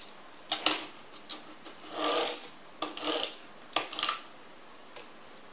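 Plastic parts of a small transforming toy car clicking and snapping as it is folded back into car mode by hand, with a short scraping rub about two seconds in. A few more sharp clicks follow about three and four seconds in.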